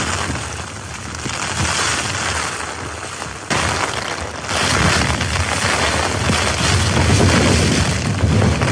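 Strong wind gusts buffeting a small backpacking tent, the fabric shaking and rumbling, swelling and easing. It gets suddenly louder about a third of the way in, and the gusts stay stronger after that.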